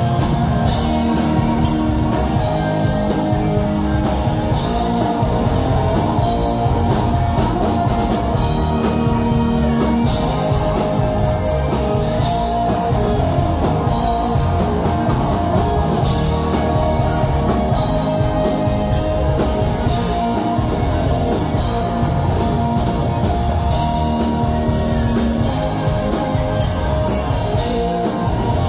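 Live rock band playing: electric guitars over a drum kit, steady and loud.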